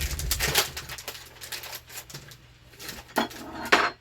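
Small chocolate-covered Twix Bits candy pieces clicking and rattling against each other and a small bowl as they are handled, with a louder burst of rattle near the end.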